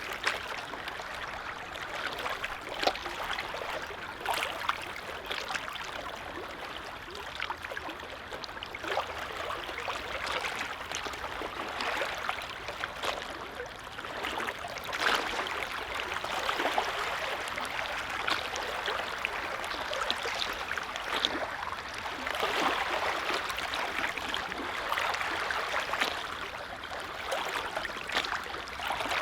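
Small lake waves lapping at the water's edge: a steady gentle splashing and trickling made of many small splashes, rising and falling every few seconds.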